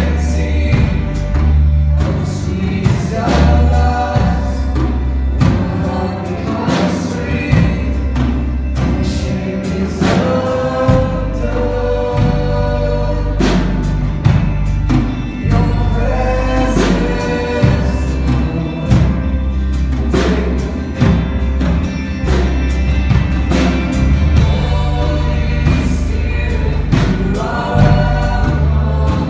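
Live worship band playing a song: a woman singing lead into a microphone over electric and acoustic guitars, with a bass line and a steady beat.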